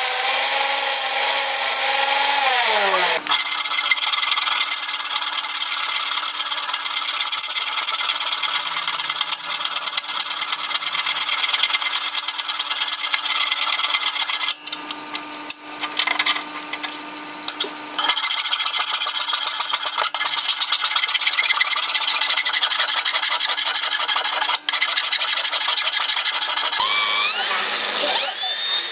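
Angle grinder running steadily while a steel awl blank is ground against its wheel, a constant motor whine under a harsh rasping of metal. In the middle there is a quieter stretch of hand filing. Near the end a cordless drill spins up with a rising whine.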